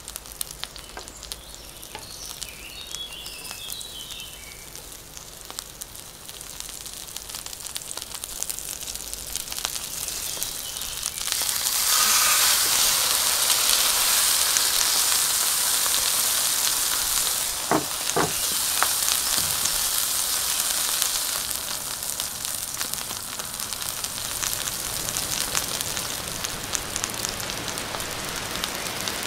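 Vegetables crackling lightly in hot oil in a cast iron pan, then a loud, steady sizzle starting suddenly about eleven seconds in as a raw wagyu ribeye steak goes into the pan, easing slightly later. A few knocks of the wooden spatula against the pan are heard midway.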